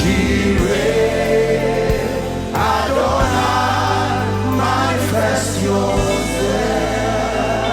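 Live gospel worship music: many voices singing a slow chorus together over sustained keyboard chords and a steady bass.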